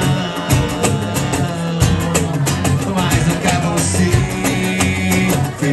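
Live acoustic band playing a song: cajón beat, electric bass and acoustic guitar, with a man singing.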